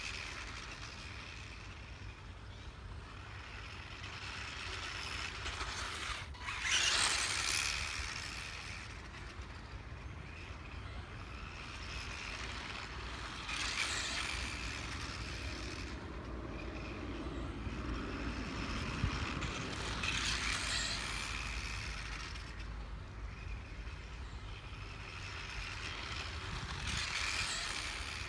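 Mechanical squeaking and clattering that swells about every six or seven seconds, over a steady low rumble.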